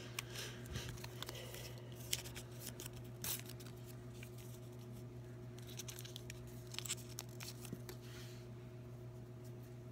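Faint rustling and scattered small clicks of hands working a saline flush syringe connected to a PICC line, over a steady low hum.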